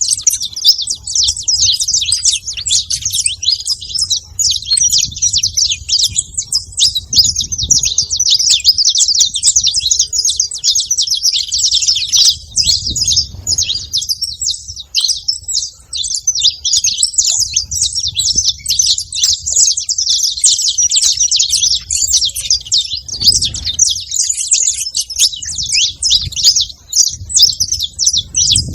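Saffron finches chirping in a continuous, dense chatter of rapid high notes, over a faint low rumble.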